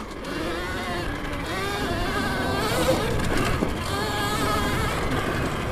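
Alta Redshift MXR electric dirt bike under way, its drive whining from the chain and sprockets, the pitch wavering up and down with the throttle.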